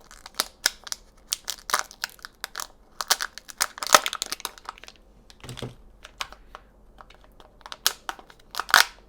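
Kinder Joy egg being opened: the plastic wrapper crinkling and tearing, with many quick sharp clicks of small plastic parts.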